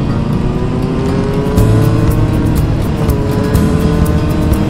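Motorcycle engine running on the move, its pitch rising slowly as it gathers speed, with background music laid over the riding sound.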